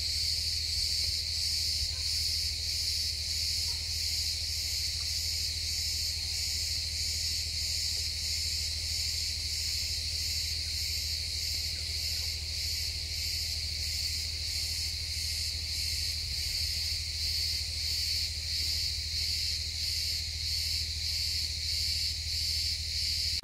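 Chorus of insects chirring: a steady high-pitched drone with an even pulsing about twice a second, over a faint low steady hum.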